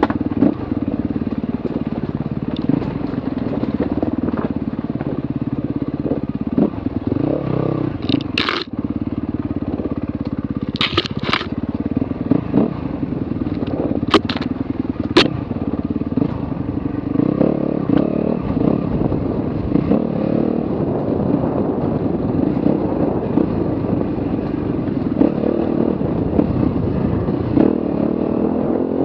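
Enduro motorcycle engine running at low revs while picking its way over a rocky trail, with several sharp clicks and knocks in the middle of the ride. The engine note picks up in the second half as the bike speeds up on smoother dirt.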